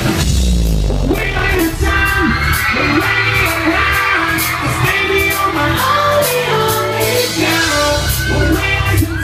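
A live pop-rock band with drum kit, electric guitars and bass playing loudly through amplifiers, with a singer's voice over it through the microphones.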